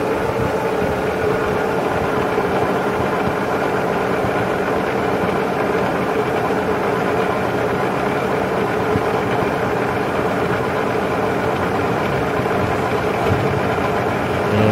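Sharp VH3 vertical-horizontal milling machine running with its automatic quill downfeed engaged: a steady mechanical hum with a constant mid-pitched tone through it.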